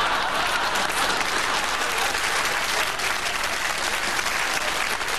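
Studio audience applauding, a steady dense clapping of many hands.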